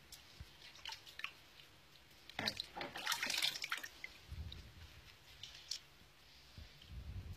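Water splashing and dripping in a plastic tub as a piece of meat is washed by hand, with a louder stretch of sloshing from about two and a half to four seconds in and small drips and clicks around it.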